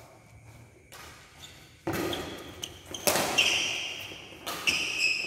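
A badminton rally: rackets hit the shuttlecock with several sharp smacks, the first about two seconds in. Short high squeaks from court shoes on the hall floor come between the hits.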